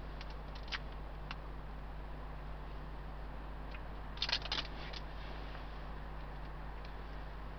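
Light clicks of cooking utensils being handled beside the pot, with a short clatter about four seconds in, over a steady low hiss.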